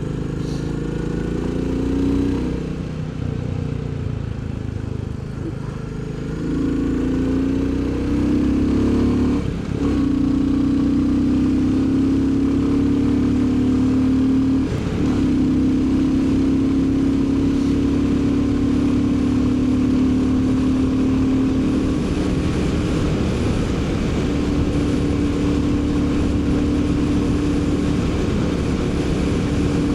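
Royal Enfield Bullet 350's single-cylinder engine pulling under way, rising in pitch over the first ten seconds with two short breaks, then holding a steady note. Wind noise grows over the last third.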